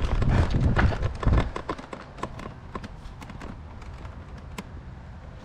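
Quick running footsteps thudding right at the microphone for about the first second and a half, then quieter scattered clicks and taps.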